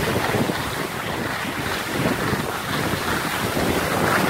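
Steady wind rushing on the microphone from moving downhill on skis, mixed with the hiss of skis sliding over snow.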